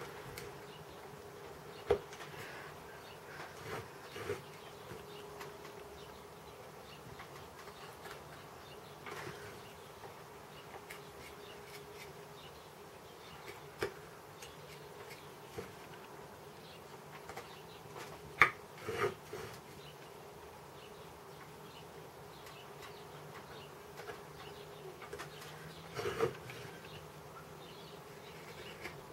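A faint steady buzz, with scattered sharp clicks and short scraping cuts, as of a chip-carving knife working wood. The sharpest click comes about two-thirds of the way through, with a cluster near the end.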